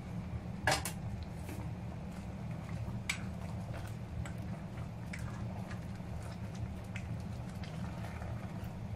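A ladle stirring shrimp and squash in a stainless steel pot, knocking against the pot now and then, with one louder clank about a second in and a sharper one about three seconds in, over a steady low hum.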